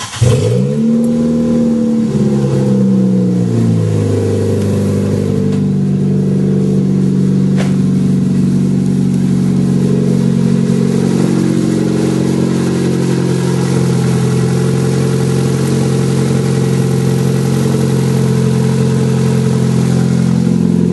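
Nissan Sentra 1.8-litre four-cylinder engine cold-started with no exhaust fitted, running unmuffled: it catches at once, flares up, and within about four seconds settles into a steady idle.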